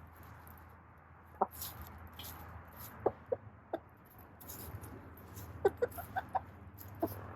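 Backyard hens making short, soft clucks and coos, a scattering of brief calls that bunch together near the end.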